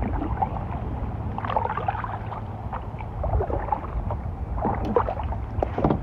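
Kayak paddles dipping and splashing in the river water, with a steady low rumble of wind on the microphone.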